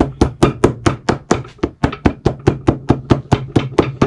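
Shoemaker's hammer tapping rapidly and evenly on a warm Vibram rubber sole protector, about six strikes a second, stopping at the end.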